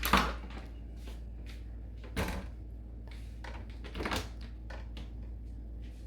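Containers and compartments being handled in a refrigerator: a clatter at the start, then knocks about two seconds in and again about four seconds in, with small clicks between, over a steady low hum.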